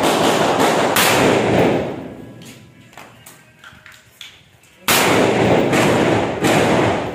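M4 carbine in 5.56×45mm fired in single shots a few seconds apart, three shots, each cracking sharply and trailing off in a long echo.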